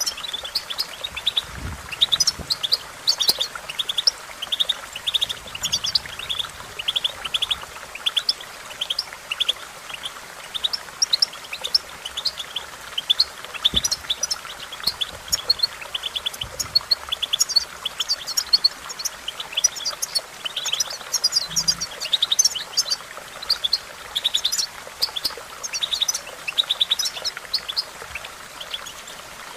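European goldfinch singing: long runs of rapid, high twittering notes and chirps with hardly a pause, over a faint steady hiss.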